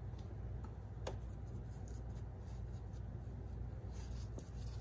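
Pastry brush dabbing and brushing beaten egg wash over a raw pie crust and dipping into a small glass of egg: faint soft brushing, with a light click about a second in, over a steady low hum.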